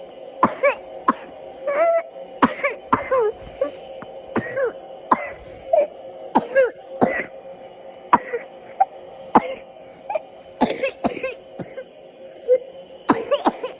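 A person coughing over and over: about twenty short coughs, many coming in quick pairs, with brief pauses between.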